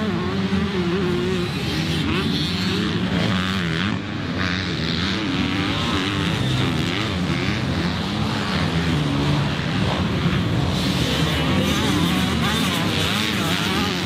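Yamaha YZ125 two-stroke motocross engine, with a VH expansion-chamber exhaust, being ridden hard. Its pitch repeatedly climbs and drops as it revs out and shifts through the gears.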